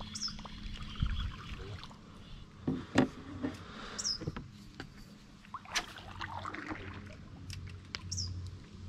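Canoe sounds: scattered knocks and splashes of paddle and gear against the hull and water, the loudest about three seconds in. A short high falling chirp comes three times, about four seconds apart.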